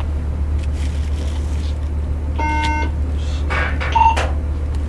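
Two-way radio beeps over a steady low hum: a tone with many harmonics held for about half a second midway, then a short higher beep about four seconds in.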